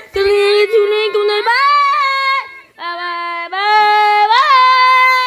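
A high voice singing a slow, wordless tune of long held notes that step up in pitch, with a brief pause about halfway through.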